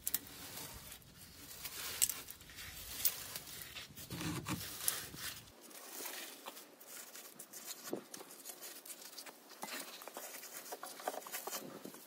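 Dry grass and twigs of a bird's nest rustling and crackling in irregular bursts as gloved hands pull it out from above a car's exhaust muffler.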